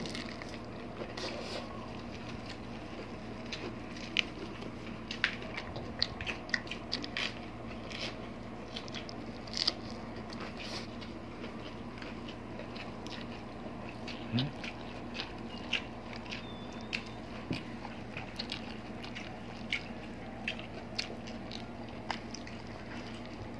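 Close-up eating sounds: biting into crisp lettuce wraps and chewing braised pork hock, with irregular short crunches and mouth clicks over a faint steady low hum.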